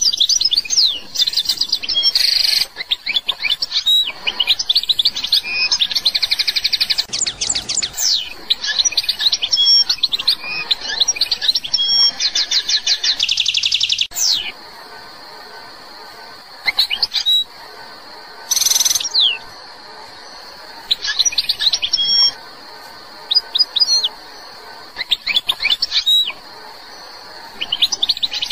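Algerian goldfinch singing: a fast, unbroken run of twittering trills and quick sweeping notes for about the first half, then shorter phrases separated by pauses.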